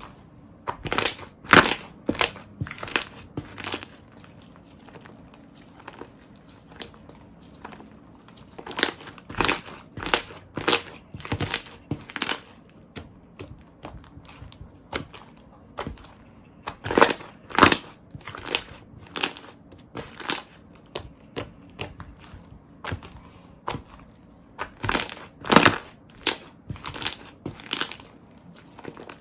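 Slime being squeezed and poked by hand, with quick crackling, popping sounds. They come in four bouts of a few seconds each, with quieter pauses between.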